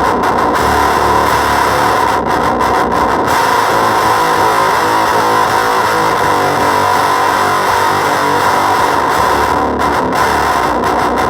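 Electric guitar played through a Gremlin Machine Shop Avedissian octave fuzz pedal: heavily fuzzed, sustained notes that change pitch, with no break.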